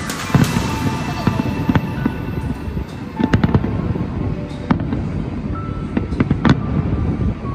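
Fireworks display: aerial shells bursting in an irregular string of sharp bangs and crackles over a continuous low rumble.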